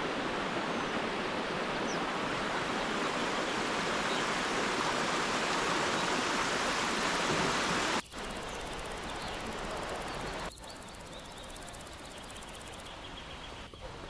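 Small waterfall splashing over rocks into a stream, a steady rush of water. About eight seconds in it cuts abruptly to a quieter background hiss, which drops again a couple of seconds later.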